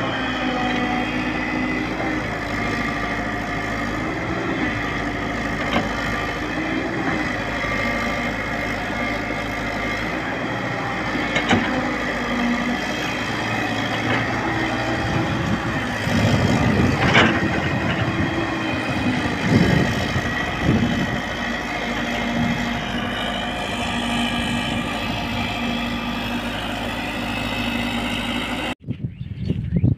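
JCB tracked excavator's diesel engine running steadily while its hydraulics swing the upper structure and boom, with a louder, rougher stretch in the middle as the machine works under load. The engine sound cuts off abruptly near the end.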